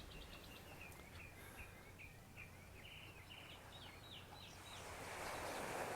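A small bird singing a faint series of short, repeated high chirps that come faster near the end, over soft surf that swells in the last couple of seconds.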